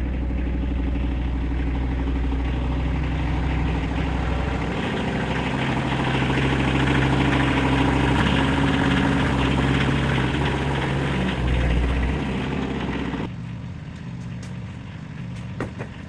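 A vehicle engine running steadily, growing louder through the middle and easing off to a quieter run about three seconds before the end.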